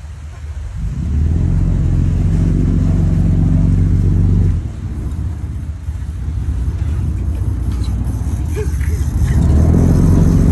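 Boat engine running with a steady low hum, throttled up about a second in, easing off at about four and a half seconds and rising again near the end.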